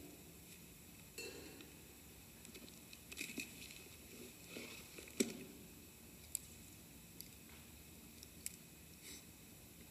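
Quiet handling noises: scattered rustles and light clicks, the sharpest click about five seconds in.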